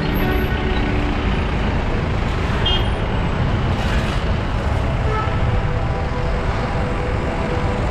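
Steady road traffic noise: vehicles running along a busy road.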